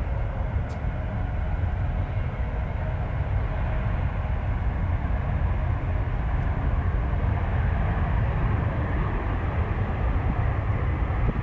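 Jet airliner taking off, its engines at takeoff thrust making a loud, steady low rumble with a faint whine above it.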